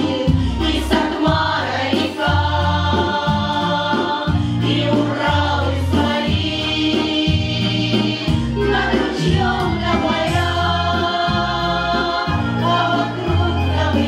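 Women's folk vocal ensemble singing a Russian song in close harmony over an instrumental accompaniment, its bass changing note about once a second.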